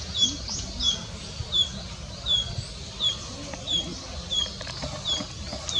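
A small songbird singing: a short, downward-slurred high chirp repeated steadily about every two-thirds of a second, with fainter higher notes between, over a low background rumble.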